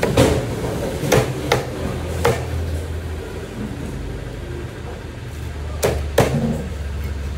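Heavy fish-cutting knife chopping through a pomfret into a wooden log chopping block: four sharp chops in the first couple of seconds, then two more in quick succession near the end. A steady low hum runs underneath.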